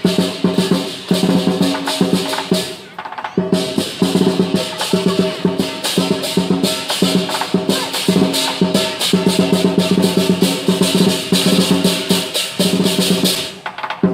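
Lion dance percussion: a drum beaten fast with clashing cymbals and a ringing gong, in a dense, steady rhythm. It pauses briefly about three seconds in and again just before the end.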